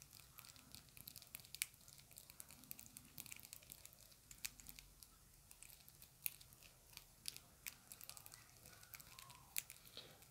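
Long acrylic fingernails fast-tapping on a small round black plastic case, making faint, rapid, irregular clicks.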